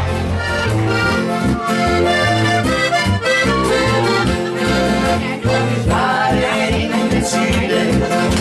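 Live band music led by an accordion playing held chords and melody over an electric bass line and a steady drum beat.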